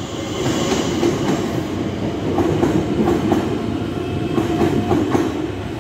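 Southeastern Networker electric multiple unit, Class 465 units coupled to a Class 466, pulling out of the platform: a steady rumble of wheels on rail with faint clicking over the rail joints.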